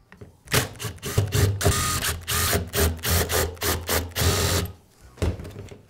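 Cordless power driver backing out the screws that hold one half of the rear handle of a Milwaukee reciprocating saw. It runs in a string of short bursts over about four seconds, then stops.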